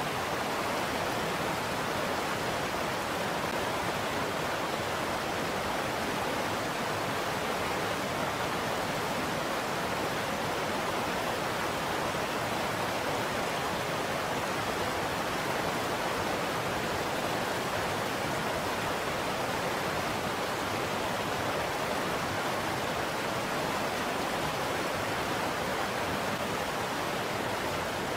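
Steady rush of flowing river water over a shallow, rocky riffle. It is a constant, even noise with no changes.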